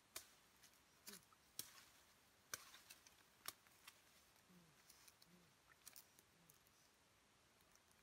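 Faint, scattered sharp snaps and cracks of twigs and branches being pulled down by hand, about six over the first six seconds, then near silence.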